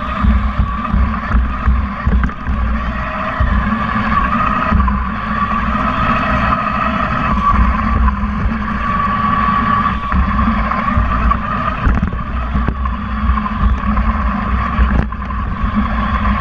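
Small competition robot driving, its electric drive motors whirring over a steady low rumble, heard through a camera mounted on the robot; the whine waxes and wanes as it moves.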